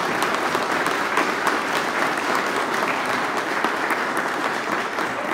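Audience in a hall applauding steadily: dense clapping from many hands.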